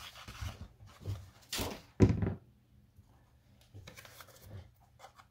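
A large thin sheet being lifted and moved on a cutting mat, rustling and flexing, with a sharp thump about two seconds in. A few faint clicks follow.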